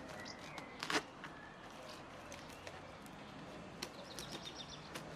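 One sharp knock about a second in, then a few lighter clicks, from wire mesh being fixed over a reed-mat wall; small birds chirp faintly in the background.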